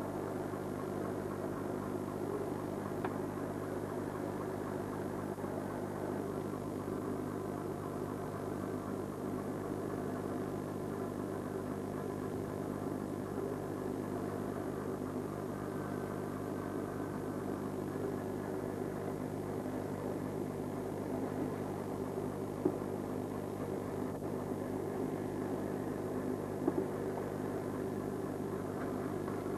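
A fishing boat's engine running steadily, an even drone that does not change, with two short clicks in the second half.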